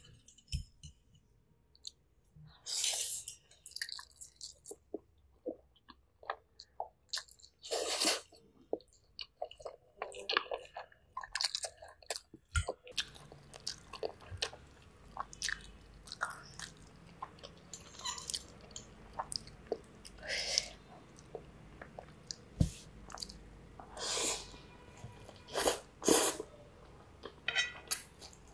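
Spaghetti being eaten close to the microphone: noodles chewed and slurped in about eight short, louder bursts, between light clicks of a fork and spoon against the plate.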